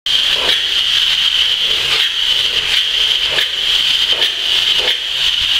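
Polyurethane spray foam gun spraying foam insulation onto a steel hull: a steady hiss with a constant high whistle-like tone running through it, and a few brief surges.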